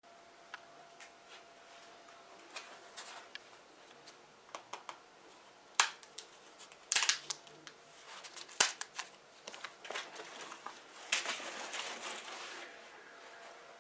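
Handling noise from an old motorcycle seat: scattered clicks, crinkles and rustles as the torn cover and its foam backing are picked at and peeled, with a few sharp knocks from the hard plastic seat base. Near the end comes a longer stretch of scraping and rustling as the seat is moved on the bench.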